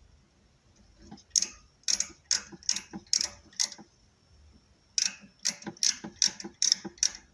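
Outside micrometer's ratchet stop clicking as the thimble is turned down onto a steel bar: two runs of about six sharp clicks, a little over two a second, the first starting a little over a second in and the second about five seconds in. Each click is the ratchet slipping, the sign that the set measuring pressure has been reached.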